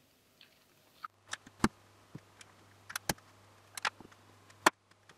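Hard plastic LEGO bricks clicking and tapping as the built model is handled on a table: about ten short, sharp clicks at uneven spacing.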